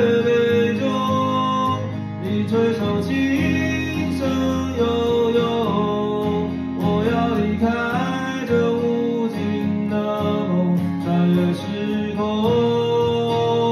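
A man singing a Chinese song to his own strummed acoustic guitar, with long held notes.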